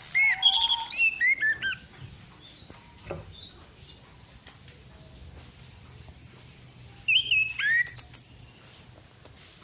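Female orange-headed thrush calling in two bursts, one right at the start and one about seven seconds in. Each burst is a fast, high rattle mixed with short whistled notes that slur up and down. A couple of brief chirps fall in between.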